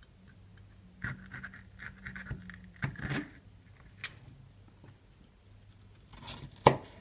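Kitchen knife cutting red bell pepper on a plastic cutting board: faint scraping cuts and several short knocks of the blade on the board, the loudest near the end.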